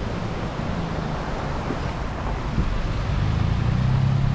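Chevy Colorado ZR2 pickup creeping along a gravel trail, heard from the cab: a low engine hum under a steady rush of tyre and road noise, the hum getting louder near the end.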